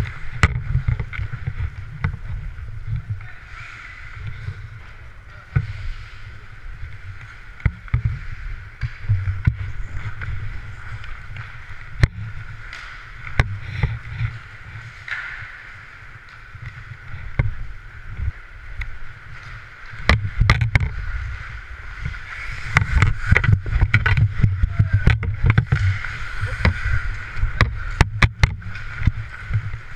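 Ice hockey play heard from a helmet-mounted camera: a low, pulsing rumble of skating and movement on the microphone, with many sharp clacks of sticks, puck and boards. The clacks come thickest in the last third.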